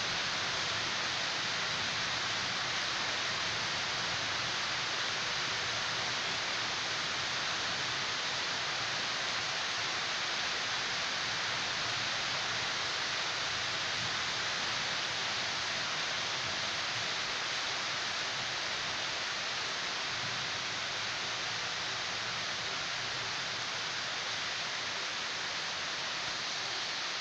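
Steady rain falling in a thunderstorm: an even, unbroken hiss.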